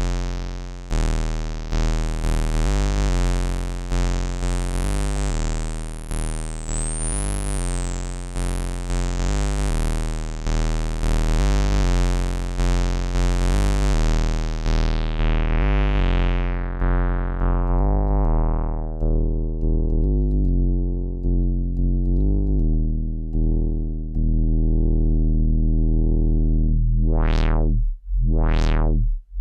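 Moog Werkstatt-01 analog monophonic synthesizer playing a big, bright bass sound of repeated notes. About halfway through, the filter closes and the tone turns dark and muffled. Near the end, quick filter sweeps rise and fall in wobbling 'wub' tones.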